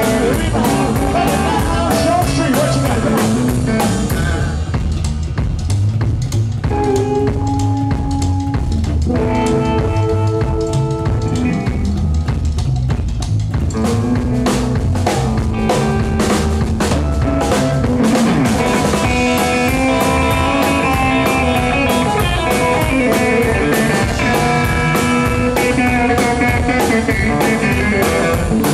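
Live rockabilly trio playing an instrumental break: an electric guitar solo over a drum kit and upright bass. The guitar drops to a few sparse, held notes for several seconds while the drums keep time, then picks up again to fuller playing in the second half.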